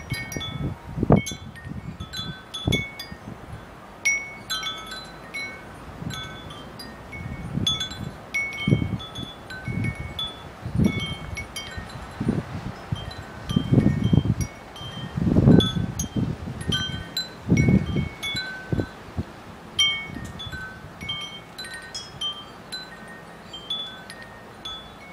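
Tubular wind chime ringing at random in gusty wind, its tubes striking several different notes again and again. Wind gusts rumble on the microphone between the strikes, loudest around the middle.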